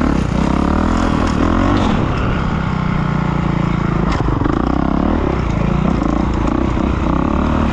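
Kawasaki KX450 four-stroke single-cylinder dirt bike engine being ridden, revving up and easing off again and again with the throttle.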